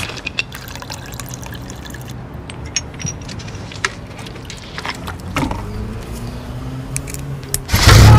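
Liquid pouring from a bottle in a car, with small clicks and handling noises over a low steady hum. Near the end, loud music suddenly bursts in from the car stereo.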